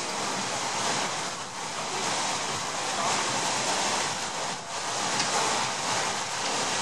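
Steady rushing and churning of water from the paddle wheels of the paddle steamer Stadt Luzern alongside the pier.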